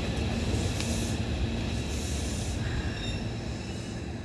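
Hankyu 1000 series electric train running into the station and slowing for its stop: a steady low rumble of wheels on rail, with several steady high tones above it, easing slightly in level.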